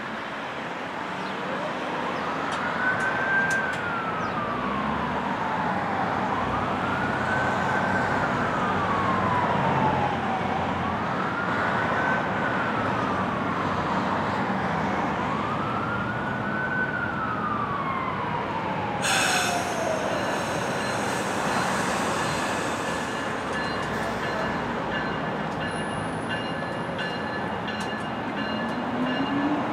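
Emergency vehicle siren wailing in four slow sweeps, each rising and then falling, over a steady background rumble. About two-thirds of the way through the siren ends and a sudden burst of noise gives way to several steady high tones, with a low hum rising near the end.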